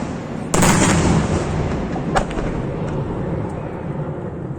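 Aerial firework shells bursting: one loud bang about half a second in, a sharper, smaller crack around two seconds, and a rumbling tail that slowly fades.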